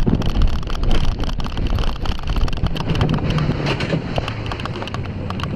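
Bobsled coaster sled rumbling and clattering along its track, with wind buffeting the microphone. The rattling thins out and a low steady hum comes in over the last couple of seconds.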